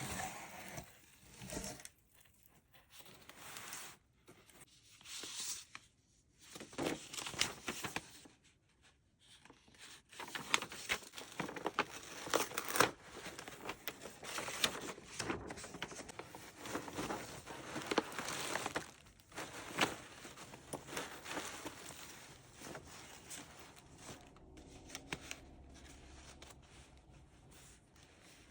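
Wrapping and packaging being handled and unwrapped: crinkling, rustling and tearing in bursts, with short pauses in the first several seconds. It gets busier from about ten seconds in and lighter near the end.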